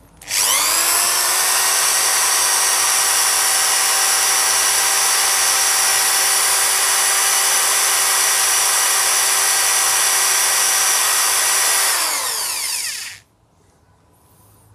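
Electric drill spinning the armature of a Hyundai Xcent electric power-steering motor, with a flat file held against the copper commutator to dress out its pits. The drill winds up quickly, runs at a steady pitch for about eleven seconds, then winds down and stops near the end.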